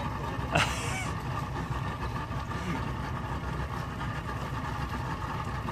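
Boat engine idling with a steady low drone, and a brief sharp noise about half a second in.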